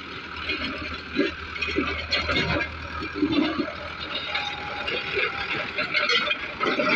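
Tractor engine running steadily with a low hum, under a dense crackling noise.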